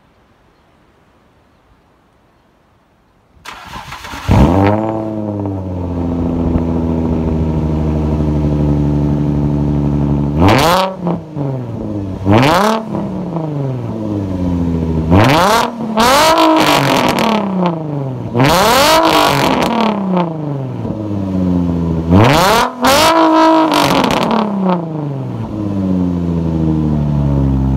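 Infiniti G35 coupe's 3.5-litre V6 starting about three and a half seconds in, flaring up and settling to a steady idle through the dual exhaust. It is then revved in a string of about nine quick throttle blips, one held a little longer, before falling back to idle.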